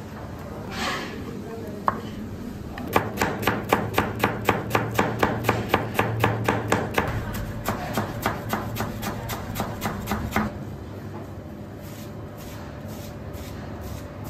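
A kitchen knife chopping fresh parsley on a plastic cutting board: a quick, even run of blade strokes that starts about three seconds in and stops about ten seconds in.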